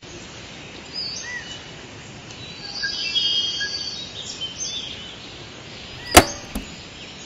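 Birds chirping over a steady outdoor hiss. About six seconds in comes a sharp plastic clack, the loudest sound, and a lighter click just after, as a JVC boombox's cassette deck key is pressed to start the tape.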